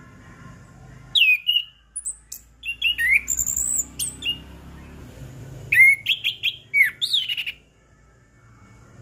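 Orange-headed thrush singing: two bursts of loud, clear whistled notes that sweep quickly up and down, the first starting about a second in, the second just past halfway.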